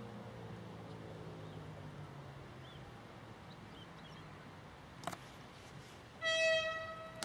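EN57ALc electric multiple unit arriving slowly, its electric drive humming in several low tones that fade away over the first two seconds. A sharp click comes about five seconds in, then the train's horn sounds one loud, steady, single-pitch blast about six seconds in. Small birds chirp faintly.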